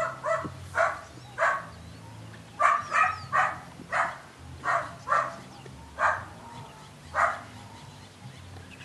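A Belgian Malinois puppy barking: about a dozen short barks at irregular intervals, stopping about seven seconds in.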